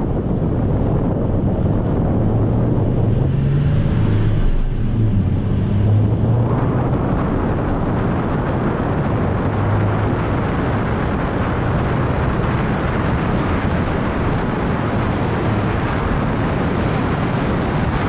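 Toyota Tacoma pickup driving: engine hum while pulling away, then a steady rush of wind and road noise from about six seconds in as it gets up to speed.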